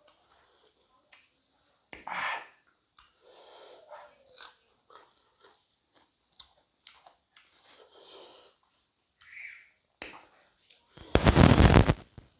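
A person eating fish curry up close to the microphone: quiet chewing, lip smacks and small wet clicks come and go, with a louder smack about two seconds in. Near the end comes a much louder rushing burst about a second long.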